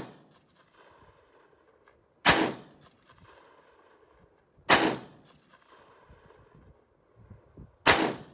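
AR-15 pistol fired in slow single shots: three sharp gunshots a little under three seconds apart, each with a brief ringing tail, and the tail of another right at the start.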